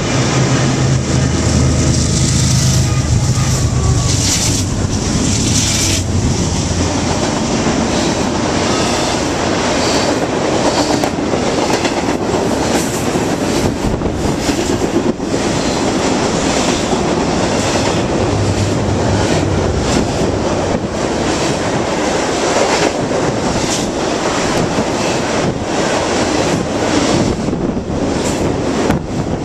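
BNSF freight train passing directly underneath at about 50 mph. The diesel locomotives' low engine drone comes first, fading about seven seconds in, and returns briefly just past halfway. Throughout there is a steady rolling rush of wheels on rail, with irregular clacks from the wheels crossing rail joints.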